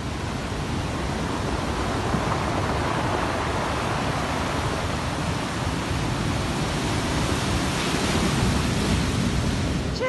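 Sea surf breaking on a beach: a steady rushing wash of waves.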